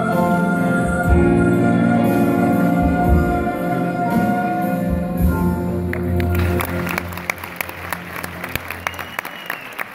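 Chamber orchestra holding the final chord of a piece. About six seconds in, the audience starts applauding as the music dies away.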